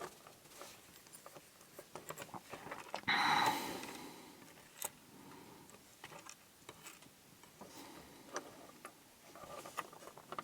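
Faint, scattered clicks and ticks of small metal padlock parts (pins, springs) and tools being handled, with a louder rushing sound lasting about half a second, about three seconds in.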